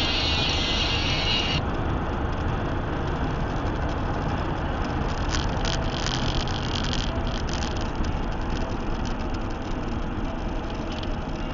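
Steady road and engine noise of a car cruising at highway speed, heard from inside the cabin, with a few light clicks about halfway through.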